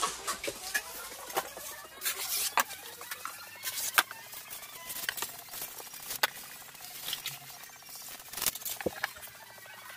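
Hands handling sheets of foam wrapping paper and ribbon on a tabletop: rustling with irregular sharp clicks and taps, the loudest about four seconds in.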